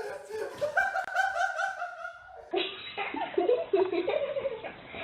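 A person laughing in quick, even pulses, breaking off about two and a half seconds in; after that a different recording with a wavering voice.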